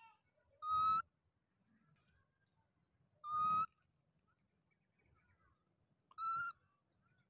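Baby macaque calling three times, each call a short, steady, high-pitched coo about half a second long, a few seconds apart.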